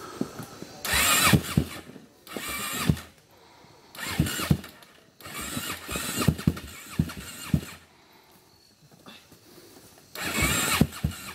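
ATV engine firing in five short bursts with pauses between, each burst rough and uneven with irregular popping, as the quad sits on a steep dirt hill climb.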